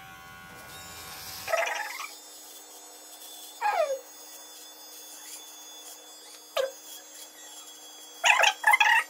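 Cordless electric beard trimmer running with a steady buzz as it shaves, on a brief charge after its battery ran flat. Loud animal calls cut across it: one falling in pitch a few seconds in, a short one later, and a quick run of calls near the end.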